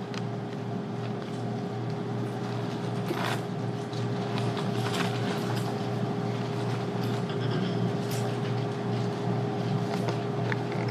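Steady low room hum in a church sanctuary, with a few short rustles of Bible pages being turned.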